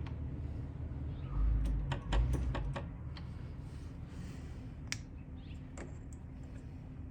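A quick run of sharp metallic clicks with low thumps from about one and a half to three seconds in, then a single click near five seconds, over a steady low hum: hand tools and parts being handled on a Suzuki LTZ 400 engine during a top-end teardown.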